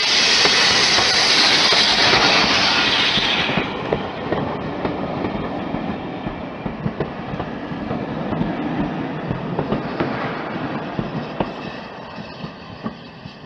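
A steam tank locomotive passes close with a loud hiss of steam that cuts off sharply about three and a half seconds in. Its coaches then roll by, rumbling with scattered clicks of the wheels over the rail joints and fading near the end.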